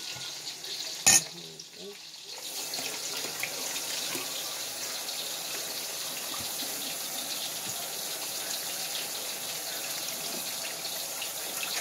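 Pot of water with eggplant boiling, a steady bubbling rush that swells about two and a half seconds in and then holds steady. A single sharp knock sounds about a second in.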